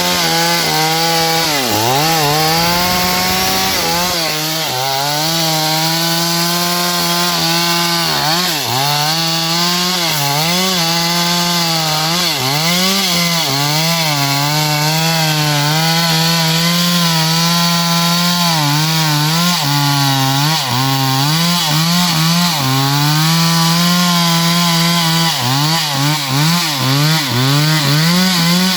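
Stihl 038 AV two-stroke chainsaw running at high revs, its pitch dipping sharply and recovering again and again.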